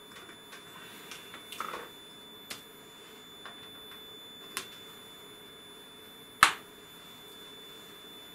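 Test leads being handled and hooked up: light clicks and a short rustle, then one sharp, much louder click about two-thirds of the way through, over a faint steady high-pitched whine.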